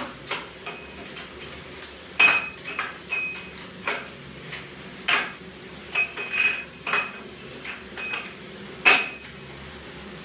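Irregular metallic clinks and knocks of hand tools against steel engine parts during a tractor engine overhaul, about a dozen strikes. Some ring briefly, and the loudest come about two seconds and nine seconds in.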